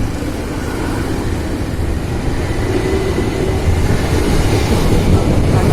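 KRL Tokyu 8500 electric commuter train running on the track: a low rumble that grows gradually louder, with a faint steady whine about the middle.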